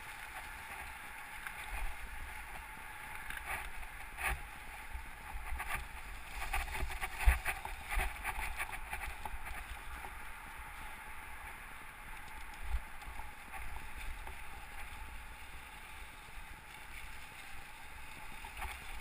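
Mountain bike ridden over a trail deep in dry fallen leaves: a steady rustling crunch of tyres through the leaves, with sharp knocks and rattles from the bike jolting over bumps, the loudest about seven seconds in.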